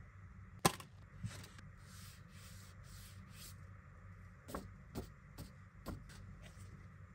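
A metal Blu-ray steelbook case being handled: a sharp click as it is opened, then a soft sliding rustle, then several light taps and clicks as the case and its paper insert are handled.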